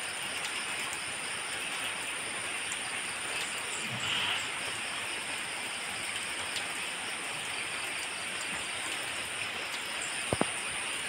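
Rain falling in a steady hiss, with a faint, steady high-pitched whine above it and a single sharp knock near the end.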